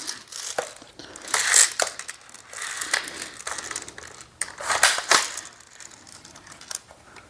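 Plastic clicks and rattles of a cheap airsoft shotgun being worked and shaken by hand, in bursts, while its gravity-fed hopper fails to feed a BB into the chamber.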